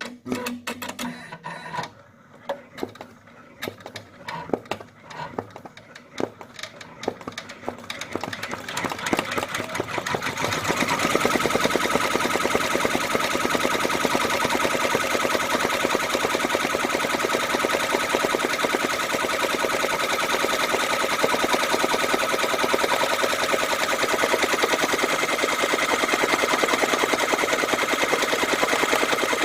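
Brother computerized embroidery machine stitching. Irregular clicks for about the first ten seconds, then it settles into a loud, steady, rapid stitching rattle.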